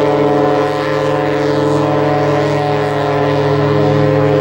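A cruise ship's horn sounding one long, steady blast: a deep single note with a rich stack of overtones.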